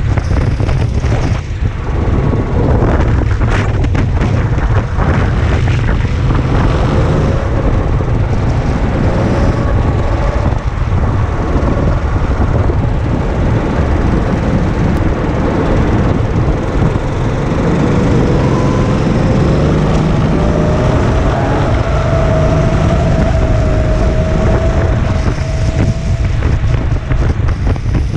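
Racing kart engine running hard, heard onboard with heavy wind rumble on the microphone. Its pitch climbs steadily through the second half as the kart accelerates.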